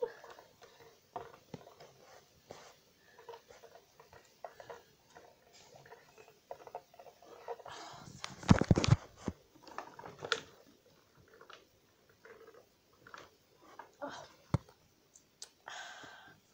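Handling noise from a handheld camera's microphone: scattered rustles, clicks and knocks, with a louder burst of rubbing about halfway through.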